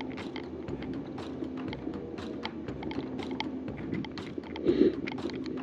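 Footsteps and rustling through dry undergrowth: a run of irregular crackling clicks, with a louder rustle near the end.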